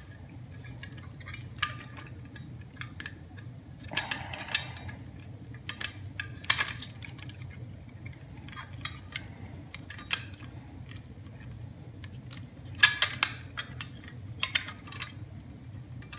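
Electrical wires being handled and pushed into push-in quick-connect connectors at an LED driver's junction box: scattered light clicks, rattles and scrapes, busiest about four seconds in and again near the end, over a faint steady low hum.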